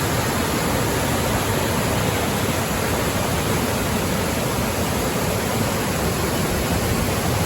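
Steady, full rush of a waterfall's water pouring and splashing.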